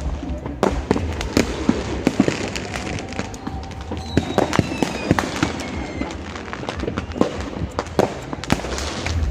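Fireworks going off in a rapid, irregular string of sharp pops and bangs. Faint whistles fall in pitch about four seconds in.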